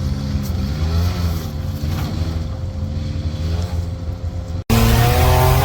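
Mitsubishi Minicab mini truck's small three-cylinder engine running under load, its low pitch wavering slightly. Near the end the sound cuts off abruptly and jumps to a louder stretch of engine with several steady higher tones over it.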